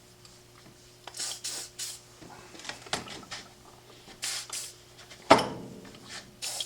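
WD-40 aerosol sprayed in several short hissing bursts into padlocks, with one sharp loud knock and a brief ring about five seconds in, the loudest sound here.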